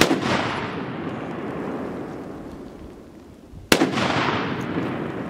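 Semi-automatic Ohio Ordnance BAR M1918A3 rifle in .30-06 firing from its bipod: one shot at the start, closing a quick string, and a single shot near the end. Each is followed by a long echo that dies away over a few seconds.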